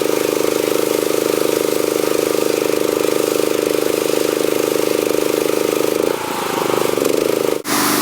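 Dewalt DPW4240 gas pressure washer's engine running steadily with an even rhythm. About six seconds in, its sound changes, and near the end it is cut off sharply before the engine sound resumes.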